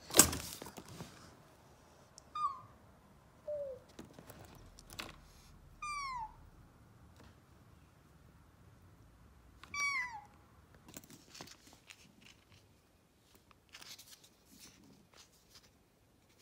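Young calico kitten mewing: four short, high calls, each falling in pitch, a few seconds apart. A sharp knock at the very start is the loudest sound, followed later by light clicks and rustling.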